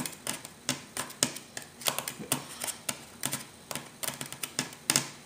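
Irregular sharp clicks and taps, a few a second, of a kitchen knife's tip working small screws out of a laptop's screen assembly, with one louder click about a second before the end.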